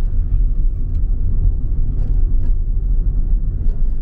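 Steady low rumble of a car's engine and tyres heard from inside the cabin while cruising at road speed.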